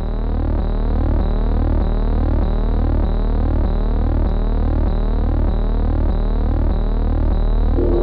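Synthesized background music: a steady electronic drone with a repeating sweeping tone that pulses at an even rhythm. Fuller music comes in near the end.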